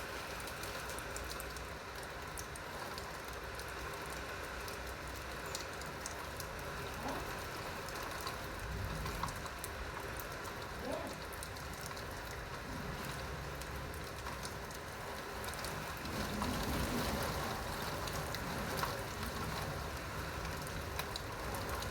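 Steady rain falling, with many individual drops pattering.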